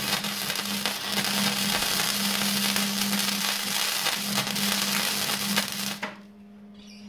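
Gasless flux-core MIG welder arc crackling steadily as a bead is run on steel tube, stopping abruptly about six seconds in. A steady low hum runs underneath.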